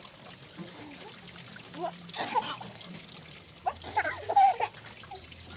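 Water trickling and splashing in a plastic bin where people are soaking, with short bursts of voice about two seconds and four seconds in.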